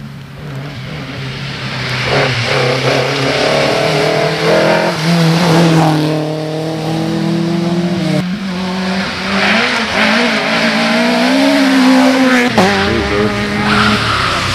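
Rally car engine at full throttle on a muddy gravel stage, growing louder over the first couple of seconds as it approaches. Its pitch climbs and drops back sharply several times as it shifts gear and lifts off.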